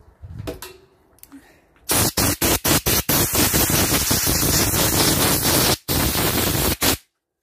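Loud hissing jet of pressurised spray or air on a freshly cleaned lawnmower carburettor, starting about two seconds in and going on in a run of short blasts with brief breaks, then stopping abruptly near the end. Faint handling clicks come before it.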